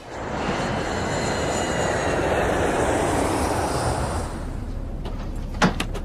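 Jet airliner engine noise: a loud rush with a high whine falling slightly in pitch. It swells at once and eases after about four seconds into a steadier hum, with a couple of sharp clicks near the end.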